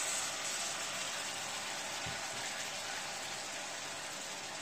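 Mutton and spice paste sizzling in a hot non-stick pan as a little water is poured in, a steady hiss that slowly dies down.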